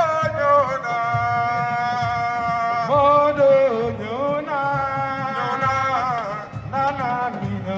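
Amplified music with a singer holding long, ornamented notes that slide up and down between pitches, in a chant-like style, played through stage loudspeakers.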